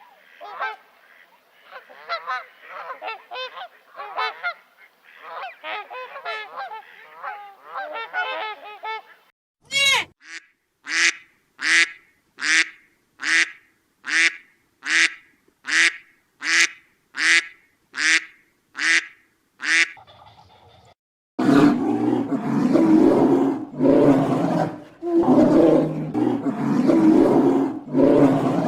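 Animal calls in three stretches: first a run of many short, high, chattering calls; then about a dozen loud honking calls, evenly spaced a little under a second apart; then, after a brief pause, loud rough grunting calls.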